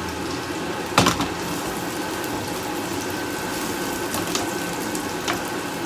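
Sliced red onions and garlic sizzling in oil in a nonstick frying pan, stirred with a wooden spatula that knocks against the pan, sharpest about a second in and a few lighter taps later.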